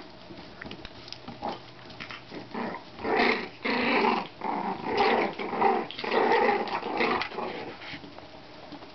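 33-day-old Shichon puppies growling at each other while play-fighting: a run of short growls from about three seconds in, stopping shortly before the end.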